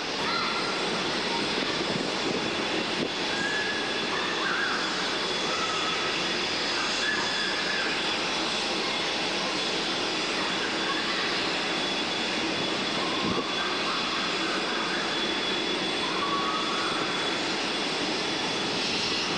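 Jet airliner engines running at an airport, a steady even rushing noise.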